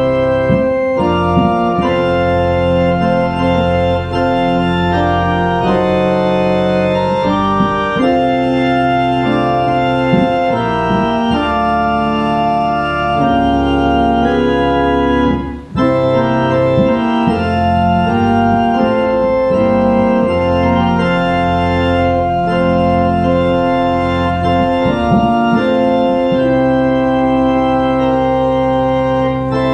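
Organ playing the prelude in slow, sustained chords that change every second or so, with a brief break between phrases about sixteen seconds in.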